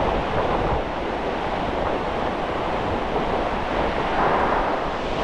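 Steady noise of surf breaking along the shore, with wind buffeting the microphone.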